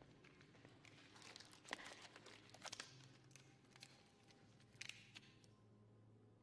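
Rubber gloves being pulled onto the hands, with faint crinkling, stretching and sharp little clicks. The sound comes in two bursts: a longer one starting about a second in and a short one near the end.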